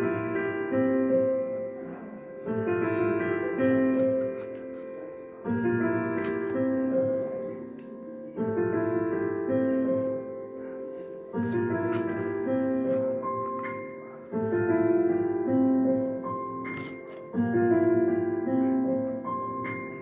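Background piano music: a gentle repeating pattern of held notes, with a new phrase starting about every three seconds.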